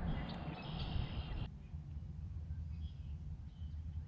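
Pondside ambience: a low steady rumble with a few faint, short bird chirps in the second half. A brief noisy stretch at the start cuts off abruptly about a second and a half in.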